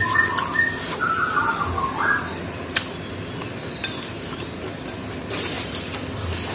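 Close-up eating sounds: a spoon scraping and stirring through rice and hot tofu on a plate, with two sharp clinks of the spoon against the plate, the second about four seconds in. A short burst of noisy chewing and scraping follows about a second later.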